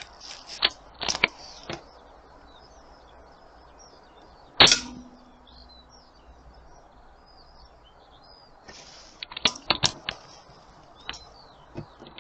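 A single AP900 air rifle shot about four and a half seconds in, a sharp crack with a short ringing tail. Clusters of small clicks come before and after it, and birds chirp throughout.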